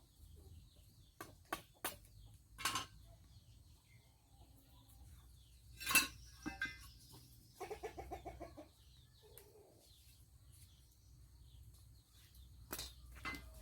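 Chickens clucking, with a quick run of clucks about eight seconds in, among scattered sharp knocks.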